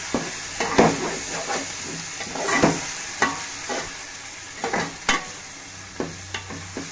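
Raw chicken pieces sizzling in hot oil in a metal pot while a metal spoon stirs them. The spoon scrapes and knocks against the pot in irregular strokes about twice a second, over a steady frying hiss.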